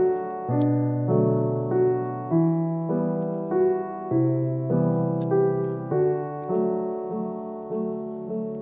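Background piano music: a melody of single notes struck about every half second over held low bass notes.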